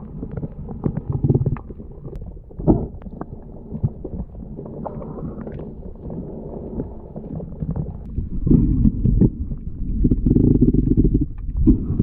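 Muffled underwater noise heard through a submerged camera: low rumbling water movement with scattered clicks and knocks, growing louder about two thirds of the way through.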